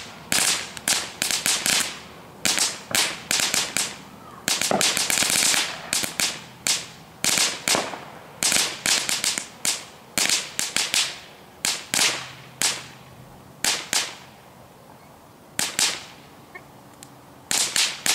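Small ground firework burning on and on, giving off sharp crackling pops in irregular clusters of several at a time. The pops thin out for a few seconds late on, then pick up again.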